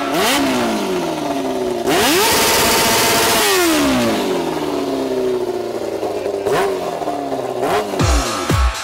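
Motorcycle-engined go-kart revved hard. The engine pitch climbs, holds high for about a second and a half, then falls away, followed by two more short blips. A thumping electronic music beat comes in right at the end.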